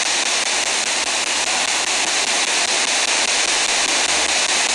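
Spirit box (a radio scanner that sweeps rapidly through stations) hissing steady static through its small speaker.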